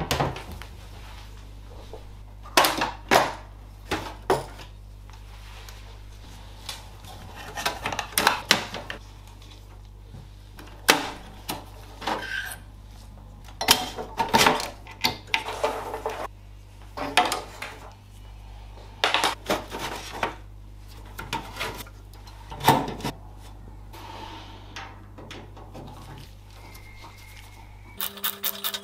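Hands handling a metal computer tower and the parts inside it: scattered knocks, clicks and rattles of the sheet-metal case, cables and components, over a steady low hum. Near the end a screwdriver works a case screw with a quick run of clicks.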